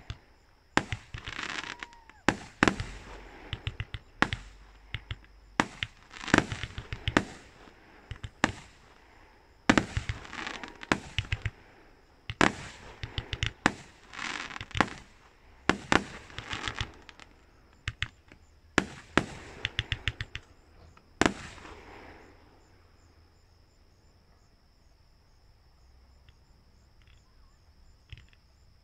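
Fireworks display: a rapid run of bangs and crackling bursts from aerial shells, with a couple of falling whistles. The bangs stop about three quarters of the way in, leaving a steady high chirring of insects.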